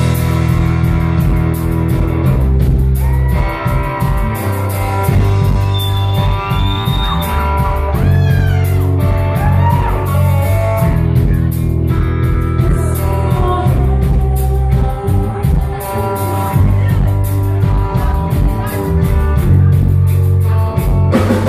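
Live rock band playing loud through the PA: electric guitars over a drum kit, keeping a steady beat.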